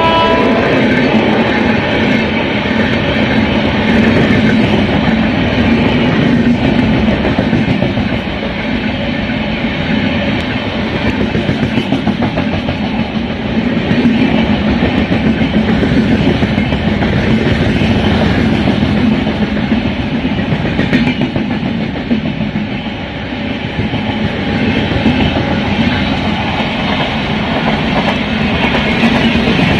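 Express train's LHB passenger coaches passing close by at speed without stopping: a loud, steady rumble of wheels on rail, with the clatter of wheels crossing rail joints.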